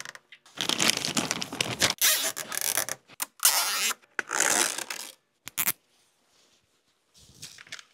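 Cable and wiring being handled under a vehicle: rustling and scraping in about five bursts of a second or less, then quiet for the last two seconds or so.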